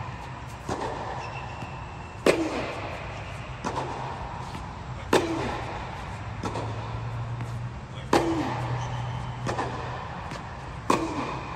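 Tennis racket striking the ball four times, about every three seconds, each hit a sharp pop that echoes in a large air-supported dome, with a quieter knock between each pair of hits. A steady low hum runs underneath.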